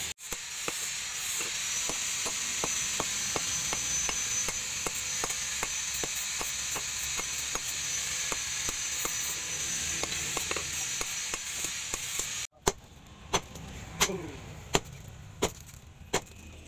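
A steady hiss with light, even ticking about three times a second, then after a sudden cut, six sharp blows about 0.7 s apart, typical of a hammer striking steel at a forge.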